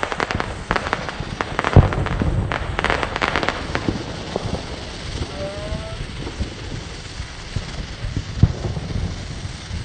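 Fireworks crackling and popping while a dog-shaped 'pooping' snake firework fizzes as it burns. The crackle is densest in the first four seconds, with a sharp pop about two seconds in and another past eight seconds, then a steadier hissing fizz.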